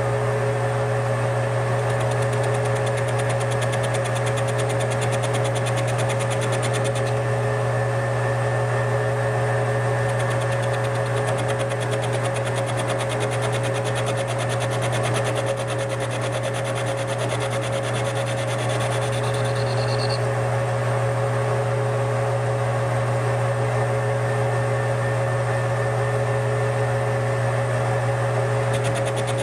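Metal lathe running at a steady speed, its motor and drive giving a constant hum with a steady whine over it. A carbide tool is fed into the spinning tool-steel workpiece, held in a four-jaw chuck, to cut a shallow witness line.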